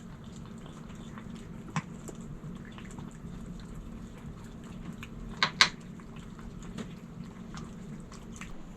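Cats eating wet food from dishes: soft wet chewing and licking, with a small click about two seconds in and two sharper clicks a little past the middle, over a steady low hum.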